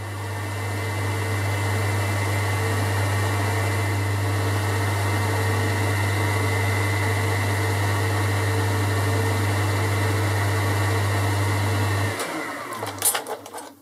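Boxford metal lathe running, its spindle and four-jaw chuck turning while the tool takes a light cut on an aluminium stud to bring it to 3 mm diameter; a steady deep hum with a fainter whine. The motor is switched off about twelve seconds in and the sound dies away, followed by a few clicks.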